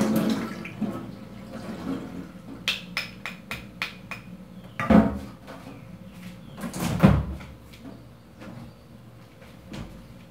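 Kitchen handling clatter: a quick run of light clicks and knocks, then two heavier thuds about two seconds apart, the second the loudest, with a few light clicks near the end.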